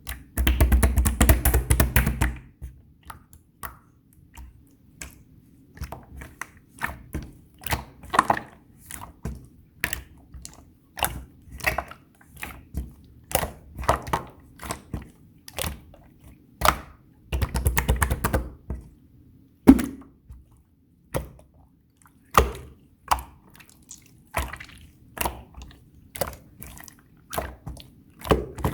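Clear slime being pressed, poked and squished by hand, giving a string of sharp wet clicks and pops. Twice, near the start and again a little past halfway, it is worked hard for about two seconds in a dense run of squishing.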